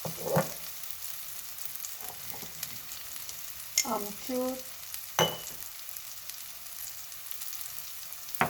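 Tomato and spice masala sizzling in hot oil in a pan, a steady high hiss, with a spoon knocking and scraping against the pan a few times as the spices are stirred in.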